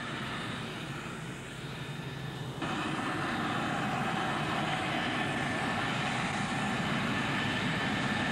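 Aircraft engine running steadily, with a thin high whine over a broad rush of noise. It jumps louder about two and a half seconds in and then holds.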